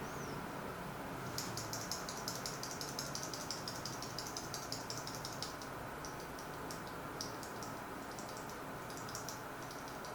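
Typing on a mechanical keyboard fitted with Gateron Ink switches: a fast run of keystrokes for about four seconds, then slower, scattered key presses, over a steady background hiss.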